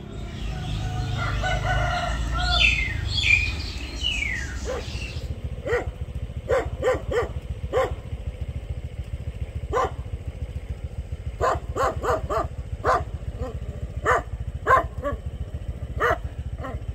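A rooster crowing for the first few seconds, then a small dog barking in short, irregular yaps, a dozen or more, through the rest.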